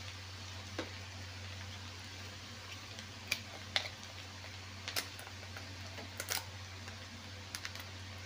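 Garlic butter bubbling and sizzling in a stainless steel pan, with a short sharp crackle or pop every second or so over a steady low hum.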